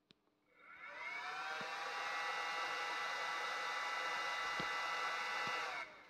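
Homemade lathe spindle driven by a washing-machine brushless DC motor spinning up with a rising whine, running steadily with several whining tones over a hiss, then winding down near the end.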